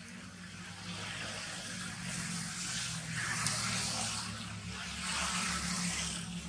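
Outdoor background noise: a steady low hum under a rushing hiss that swells and fades twice.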